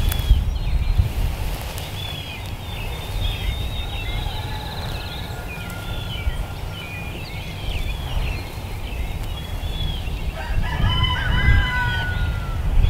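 Wind buffeting the microphone, with small birds chirping throughout and a rooster crowing once about ten seconds in.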